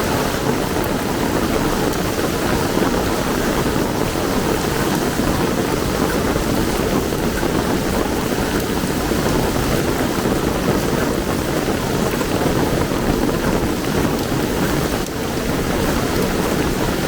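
Heavy rain pouring steadily, a dense, even rush of water with no let-up.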